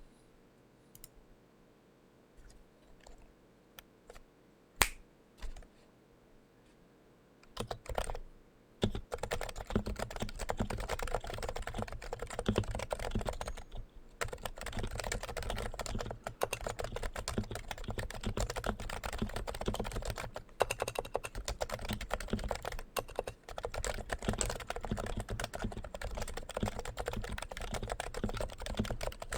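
Typing on a Topre Realforce R2 TKL keyboard with Topre electrostatic capacitive switches. A few scattered keystrokes for the first several seconds, then steady fast typing from about nine seconds in, with a short pause partway through.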